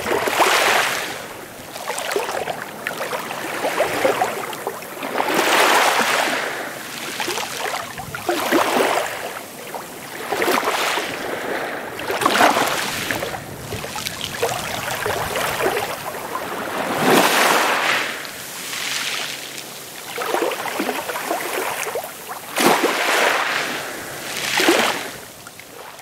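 Small waves washing against the shore, a hiss that swells and falls every second or two.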